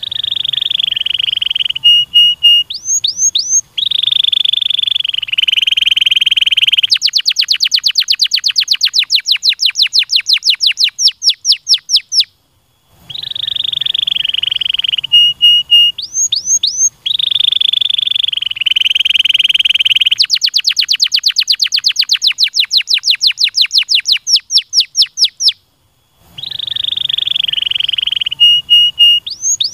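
Domestic canary singing loudly. Its song mixes long rolling trills, a fast run of repeated rising notes and short whistled sweeps, breaking off briefly twice and starting again.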